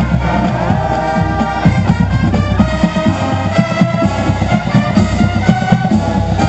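Marching band playing, with held and sliding pitched notes over a steady beat of drums.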